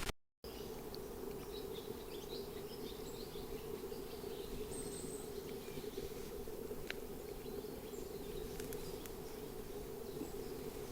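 Quiet outdoor ambience: a steady low hum runs underneath, with scattered faint high bird chirps.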